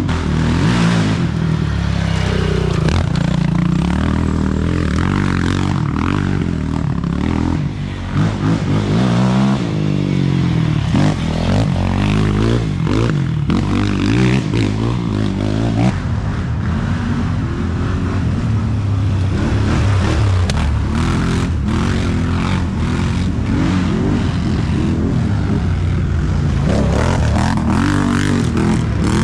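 ATV quad engines revving on a forest dirt trail, their pitch climbing and dropping again and again with the throttle. A quad draws closer near the end.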